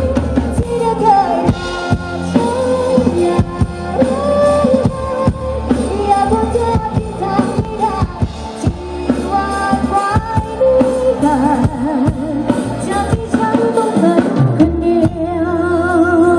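Live band music played through a Thai rot hae sound truck's speaker stacks: a woman sings lead over drum kit, electric bass and keyboard.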